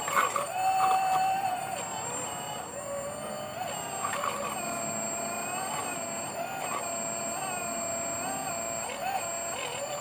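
Electric hydraulic pump motor of an RC excavator whining, its pitch dipping and recovering every second or so as the hydraulics take load, over a fixed high electronic tone.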